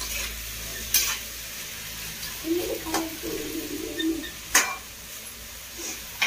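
Chopped onions and capsicum stir-frying in a steel kadhai with a steady sizzle, while a metal spatula knocks against the pan four times.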